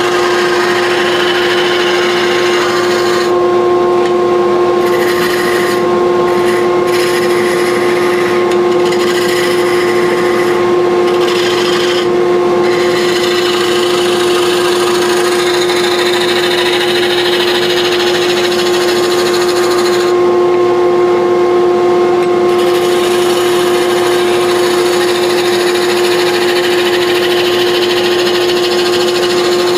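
Wood lathe running with a steady motor hum while a turning tool cuts a spinning wooden handle blank, the hissing rasp of the cut dropping out briefly a few times as the tool is eased off.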